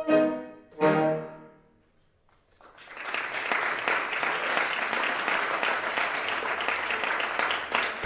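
Alto saxophone and grand piano play the last two short chords of a piece, each ringing away; after a brief silence an audience breaks into steady applause about two and a half seconds in.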